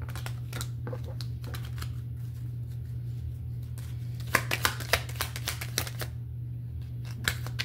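A deck of divination cards being handled and shuffled by hand, with scattered card clicks and a quick run of louder card snaps about four seconds in. A steady low hum runs underneath.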